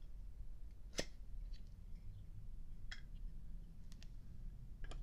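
A few small, sharp metallic clicks and taps from handling a Zippo windproof lighter, the loudest about a second in, over a faint low hum.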